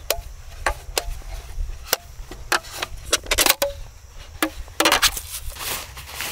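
A lightweight folding camp table being taken apart by hand: a string of sharp clicks and light knocks as its slotted plate legs and top panels are pulled apart and stacked, a quick cluster of clatters about three and a half seconds in, and rustling as the parts are handled near the end.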